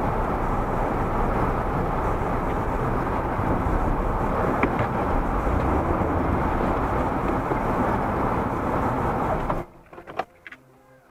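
Steady car cabin noise: engine and tyre rumble on a snowy road, heard through a dashcam. It cuts off abruptly near the end, leaving near silence with a few faint clicks.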